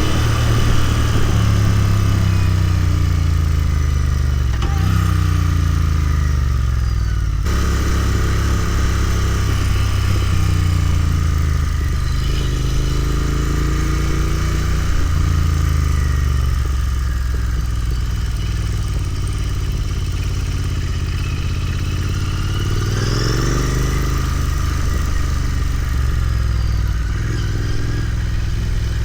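Royal Enfield Continental GT 650's 648 cc parallel-twin engine under way. Its pitch falls and rises several times as the throttle is rolled off and opened again and the gears change, and it holds a steadier low note for a while after the middle.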